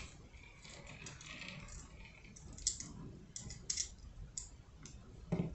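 Faint handling of tiny fingerboard hardware: a few light, sharp clicks of small metal parts such as a truck, wheel and lock nut being turned in the fingers and set down, mostly in the second half.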